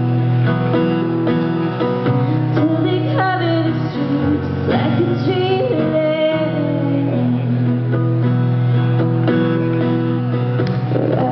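A woman singing solo with her own acoustic guitar, a slow song performed live through a stage sound system.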